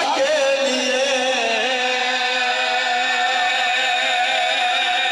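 A man's voice chanting devotional verse in a drawn-out sung style into a microphone, holding one long wavering note for most of the time.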